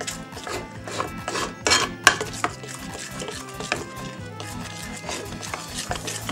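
A spoon clinking and scraping against a bowl as it stirs thick pancake batter, over background music.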